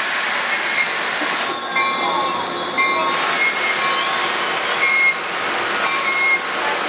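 Metrolink bilevel passenger train rolling slowly into the platform to a stop, its brakes squealing in a few high steady tones that come and go over a steady hiss.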